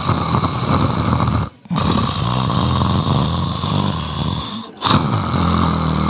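A man imitating loud snoring into a handheld microphone: long snores with two short breaks between them.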